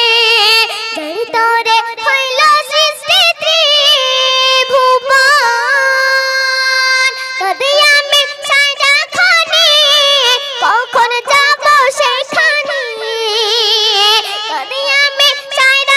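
A boy singing a Bengali Islamic gojol solo and unaccompanied into a handheld microphone, in a high voice. He holds one long steady note for about three seconds near the middle, and sings wavering, ornamented notes late on.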